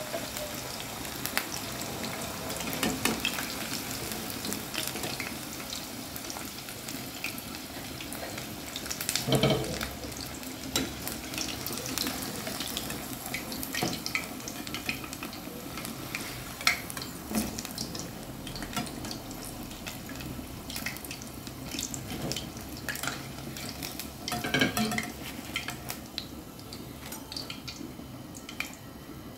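Chicken pakoras in gram-flour batter deep-frying in hot oil in a metal wok: a steady crackling sizzle. Now and then a metal slotted spoon knocks and scrapes against the pan as the pakoras are lifted out, with two louder knocks about a third of the way in and again near the end.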